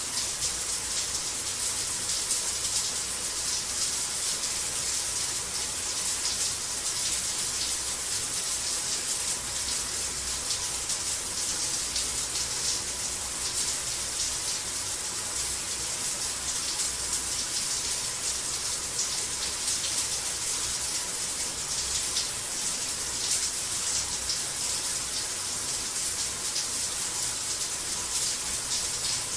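Shower running: a steady spray of water, even and unbroken.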